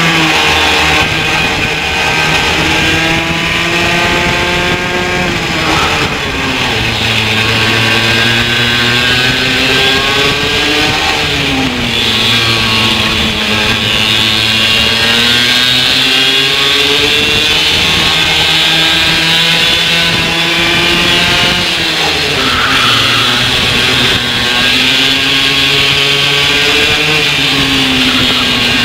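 Racing kart engine heard onboard under hard load, its pitch climbing along the straights and falling sharply several times as the driver lifts off for corners.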